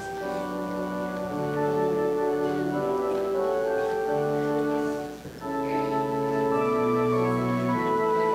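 Organ playing slow held chords that change every second or so, with a brief break about five seconds in.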